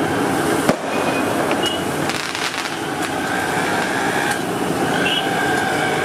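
Metal spatula scraping and tapping on a large flat iron tawa as egg bhurji is stirred and chopped in sizzling oil, with one sharp clank under a second in.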